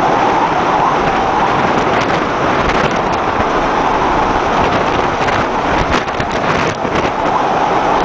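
Storm wind and heavy seas breaking over a tanker's bow: a loud, steady rushing noise with wind buffeting the microphone. A few sharp clicks come about three-quarters of the way through.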